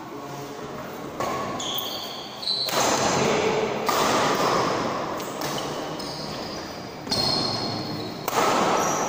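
A doubles badminton rally on an indoor court: racket hits on the shuttlecock and shoes squeaking on the court floor, with short high squeaks now and then.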